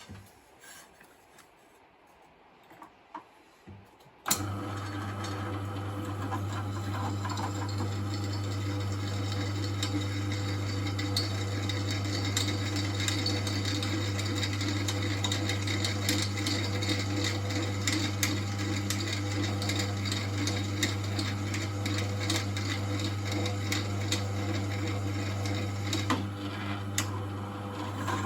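A few light clicks, then about four seconds in an electric drill starts and runs steadily with a low motor hum, a 5/16-inch bit cutting a hole through a steel lawnmower bottom blade with a scratchy rasping sound.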